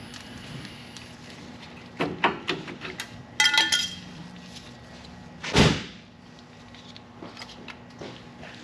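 Metal knocks and clanks, with a short ringing clink partway through, then one loud heavy thump about five and a half seconds in.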